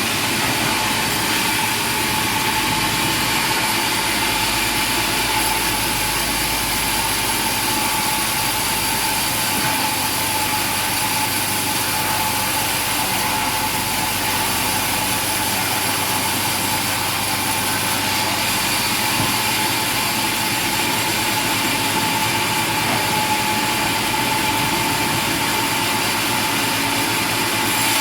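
Sawmill machinery running steadily: a continuous engine-like drone with a steady high whine.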